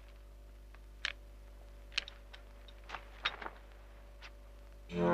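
A few faint, sharp clicks and taps, spaced irregularly about a second apart, over a low steady hum. Dramatic score music with a distorted, guitar-like sound comes in just before the end.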